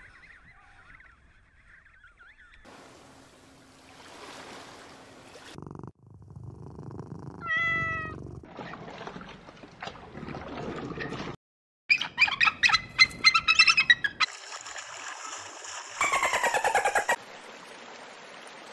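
A string of short animal-call clips cut one after another: a single pitched call about eight seconds in, a quick run of loud repeated calls around twelve to fourteen seconds in, and a loud, falling, pulsing call around sixteen seconds in, with quieter background noise between.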